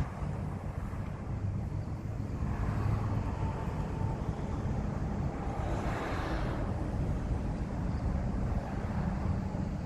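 Car driving, a steady low engine and road rumble, with a louder rush of noise building and fading around six seconds in.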